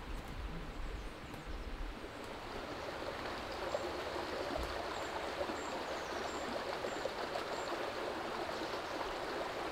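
Shallow stream running over rocks: a steady rush of water, growing a little louder two to three seconds in.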